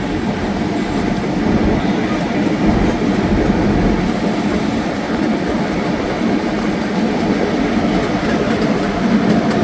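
Miniature passenger train running along its track, heard from aboard: a steady rumble of the carriages and wheels on the rails.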